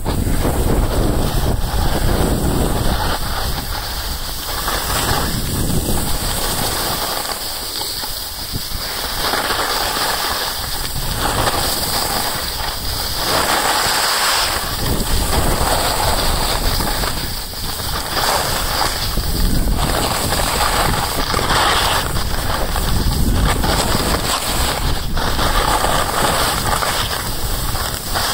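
Loud wind noise on the microphone, swelling and easing every few seconds, mixed with the hiss and scrape of sliding downhill on groomed snow.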